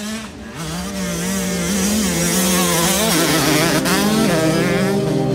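Motocross bike engine revving on the track, its pitch rising and falling repeatedly as the rider works the throttle, climbing more steeply about three seconds in.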